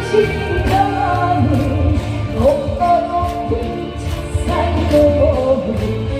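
Korean trot song performed live: a sung melody with wavering, gliding notes over a backing track with a steady bass beat.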